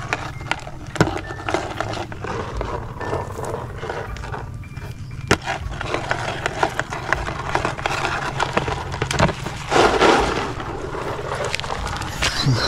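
Rustling and clicking handling noise of metal tongs working among dry leaf litter and a plastic tub, with scattered sharp clicks and a louder rustle about ten seconds in, over a steady low rumble.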